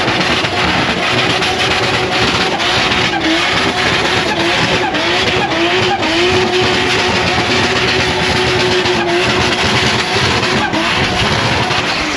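RB30-powered Mercedes 190E doing a burnout: the straight-six engine held at high, steady revs with a few brief dips, over loud tyre-spinning noise.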